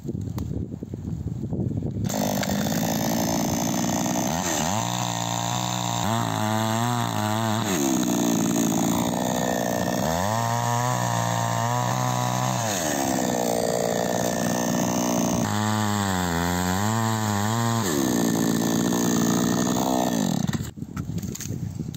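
Two-stroke petrol chainsaw revving up and cutting through a pine log. The engine pitch sags and wavers three times as the chain bites into the wood and rises again between cuts, then the saw cuts off near the end.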